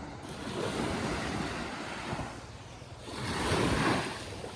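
Sea waves washing onto a beach: two swells of surf hiss, the second and louder one about three seconds in, with some wind on the microphone.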